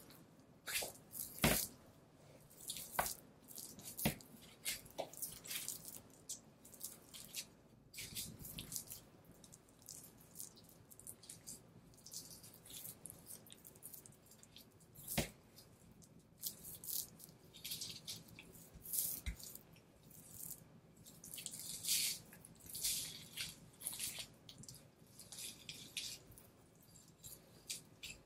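Knife slicing and peeling fat and sinew off a raw Kuroge wagyu beef knuckle (shintama): a run of short, wet, sticky cutting sounds, with a few sharp clicks.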